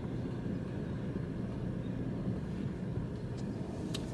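Car engine running at low speed, heard from inside the cabin as a steady low hum.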